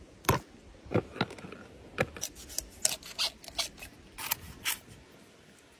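Whole raw chicken and a cleaver handled on a wooden cutting board: about a dozen sharp knocks and taps over five seconds. The first few are deeper thuds; the later ones are thinner clicks.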